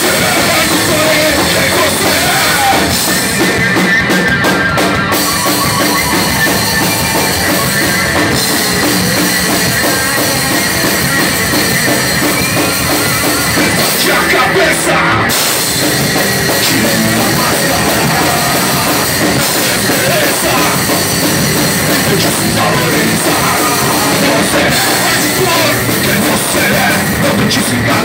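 Hardcore punk band playing live and loud: electric guitars over a drum kit, with no let-up.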